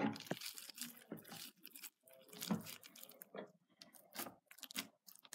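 Hands squeezing and kneading a sticky lump of homemade shaving-cream slime, giving irregular wet squelches and crackles.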